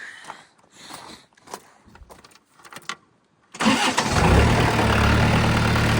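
A few faint clicks and knocks, then about three and a half seconds in the Case D40 tractor's engine fires up abruptly and settles into a steady idle. It is being run to check newly fitted power steering hoses for leaks.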